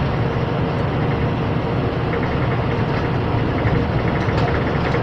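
Scania 440 truck's diesel engine running steadily under load at cruising revs, heard from inside the cab, with a light ticking rattle joining about two seconds in.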